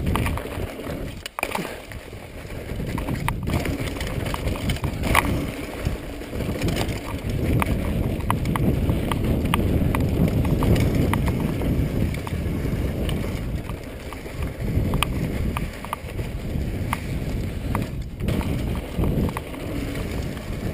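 Mountain bike descending a dirt singletrack: a steady rumble of tyres on dirt and wind on the microphone, rising and falling with speed, with frequent sharp clicks and rattles from the bike over rough ground.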